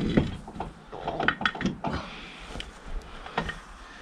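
Scattered light knocks and clunks as a SAME tractor's front wheel is handled and fitted onto its hub.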